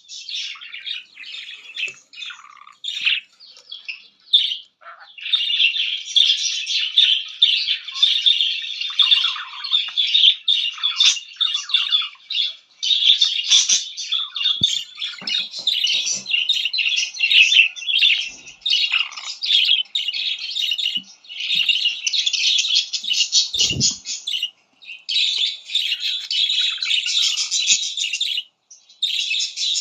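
Pet budgerigar warbling and chattering almost without pause: a dense run of fast chirps and squawks. There is a brief low knock about 24 seconds in.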